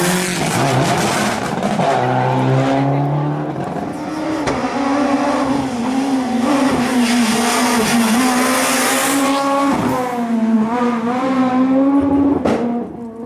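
Rally car engines at hard throttle on a twisty stage: one car pulls away through its gears, then another comes up and passes, its engine note rising and dropping with each gear change. A sharp crack near the end.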